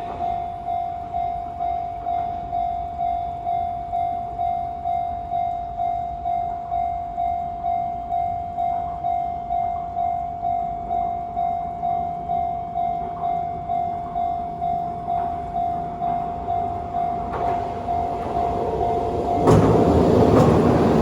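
Level-crossing electronic warning bell ringing a steady repeated tone, about two strikes a second. Near the end a Chikuho Electric Railway train approaches and runs through the crossing, louder than the bell.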